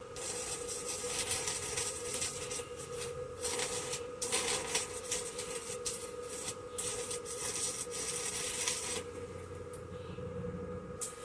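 Irregular scraping, rasping strokes, as of a hand tool worked against a hard surface, over a steady hum; the scraping stops about nine seconds in.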